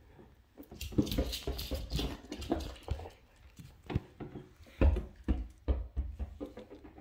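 Irregular taps, scuffs and knocks on a laminate floor as a miniature schnauzer plays with a spiky rubber ball, with a few heavier thumps about five seconds in.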